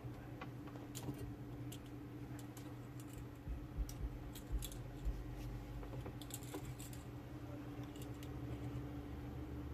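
Small, sharp, irregular clicks and taps of hand tools on a tiny circuit board during fine soldering work, over a steady low hum.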